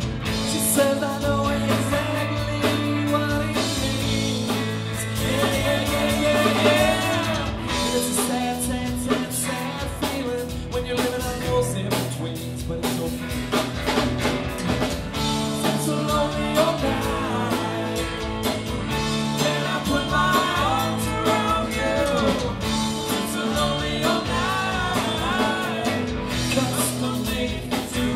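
Live rock band playing a song: a man sings over electric guitar and drum kit.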